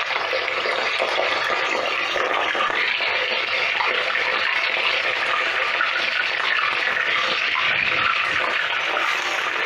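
Bone-in beef frying in very hot oil in a cast-iron kazan: a steady, vigorous sizzle from the moment the meat goes into the heated oil to start browning.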